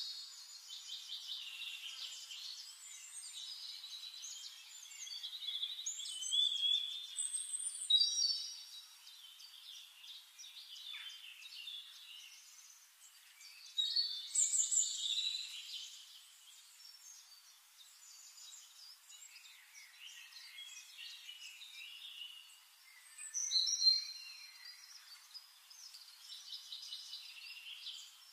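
Songbirds singing and chirping, a busy mix of trills, short whistled notes and warbles that comes in uneven bursts, louder several times.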